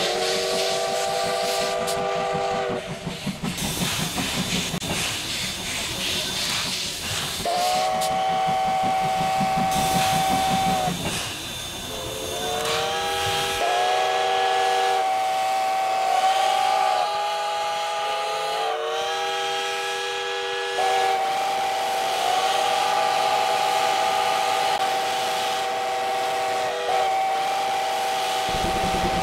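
Steam locomotive C12 66's whistle blowing long chord-like blasts: one at the start, another about eight seconds in, then almost unbroken through the second half with its notes shifting in pitch. Under the whistle run steam hiss and, in the first half, the rhythmic chuff of the exhaust.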